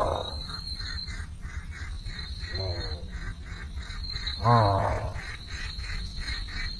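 Low, harsh animal call, given three times: one fading out at the start, a weaker one near the middle and a loud one about two-thirds through. Under the calls run a steady high-pitched trill and a rapid, even pulsing of about four beats a second.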